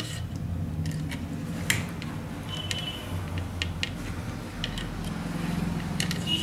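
Scattered light clicks and taps from handling a TV power-supply circuit board, over a steady low hum. A short high tone sounds about two and a half seconds in and again near the end.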